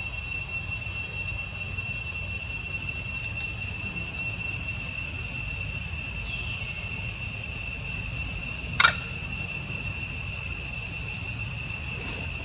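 Steady, shrill chorus of insects holding a few fixed high pitches, over a low background rumble, with one sharp click about nine seconds in.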